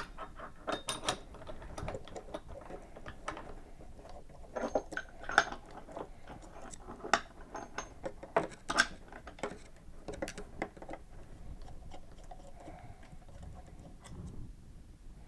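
Hands handling limit switch parts and wiring: irregular small clicks, taps and clatter of plastic and metal pieces, with no steady rhythm.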